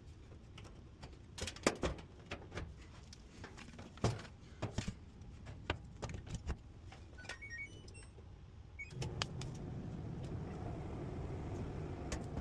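Scattered clicks and taps, then a short stepped electronic chime, and about nine seconds in an LG clothes dryer's motor starts and runs with a steady low hum as the drum turns.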